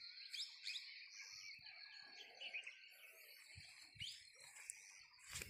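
Faint chirps of wild songbirds over a steady, high insect drone, with a few soft thumps about three and a half to four seconds in and again near the end.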